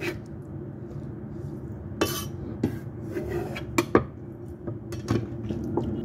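Kitchen clatter of a knife and cut tomato pieces on a wooden chopping board and into a ceramic bowl: about half a dozen scattered sharp knocks and clinks, the loudest about two and four seconds in, over a steady low hum.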